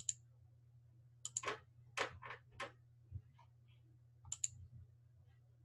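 Faint computer mouse clicks while navigating a file dialog: a sharp double click at the start and again about four seconds in, with a quick run of softer taps and clicks in between, over a low steady hum.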